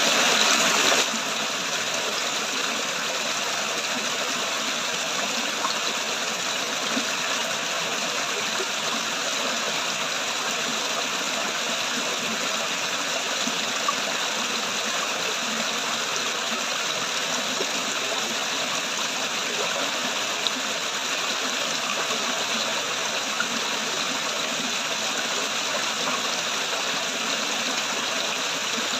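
Water flowing and splashing down a small waterfall in a steady, even rush, a little louder for the first second.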